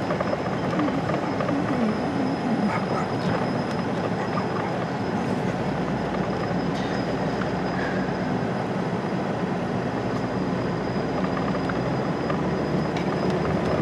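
Steady road and tyre noise heard inside a moving car's cabin, with a few faint ticks that the driver puts down to small rocks caught in the tyre treads.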